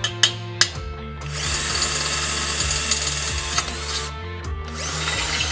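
Two hammer blows on a center punch against a steel exhaust header tube, then a cordless drill boring through the tube's steel wall. The drilling stops briefly and starts again near the end.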